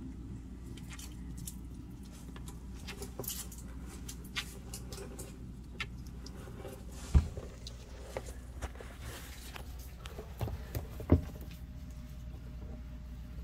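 Scattered light clicks and taps of toads, a box turtle and superworms moving about on the floor of a plastic tub. Two louder knocks come about seven and eleven seconds in, over a steady low hum.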